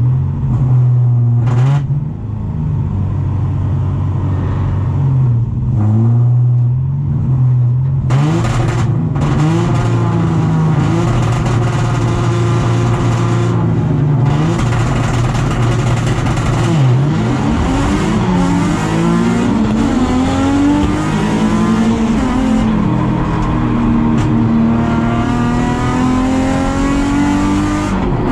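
Nissan 350Z race car's V6 engine heard onboard, holding a steady engine speed for about eight seconds, then revving hard and accelerating, its pitch climbing through each gear and dropping back at the shifts.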